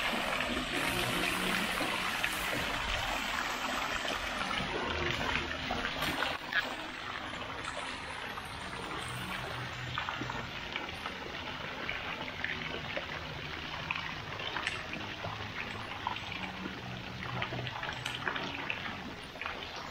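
Water-wall fountain: water running down a stone wall and splashing steadily into a koi pond. The steady trickling and splashing gets a little quieter after about six seconds.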